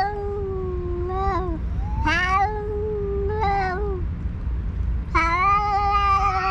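Two cats yowling at each other in a territorial standoff: long, drawn-out, wavering yowls traded back and forth, with a longer one starting about five seconds in.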